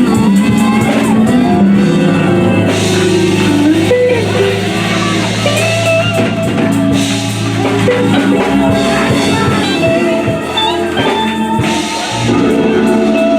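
Live band music with guitar and drum kit.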